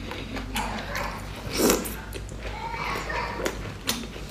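Close-miked eating of saucy seafood: wet chewing, sucking and lip smacks with many short clicks. The loudest is a noisy wet burst about a second and a half in.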